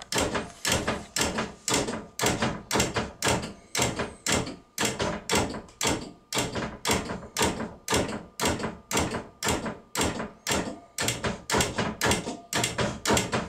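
Relays on the door control board of an Arjo Freedom Bath tub clicking on and off by themselves, fast and regular, about two clicks a second. The door's down relay is cycling without being commanded. This fault leaves the tub doors unable to be rolled up or down, and the owner fears the relays or motor may burn out.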